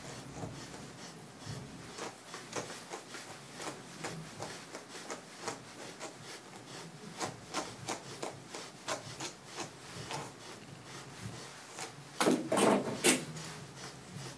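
Brush strokes dragged repeatedly through a matted dog's thick curly coat while the mats are brushed out: a steady run of short scratchy rubbing strokes, about two to three a second. Near the end comes a louder knock or two.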